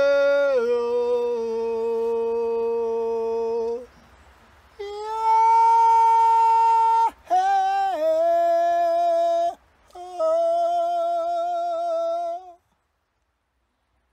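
A man humming long, wordless held notes, each steady in pitch and stepping down from one to the next, with a short pause a few seconds in. It stops about a second and a half before the end.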